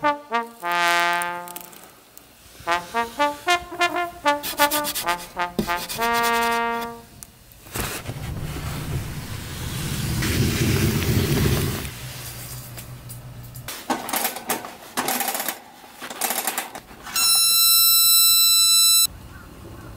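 Brass music with rhythmic notes for the first seven seconds. Then a stretch of rustling noise and scattered clicks. Near the end comes a loud, steady buzzing tone of about two seconds that cuts off suddenly, as the Paseco Camp 30 kerosene heater's ignition knob is worked.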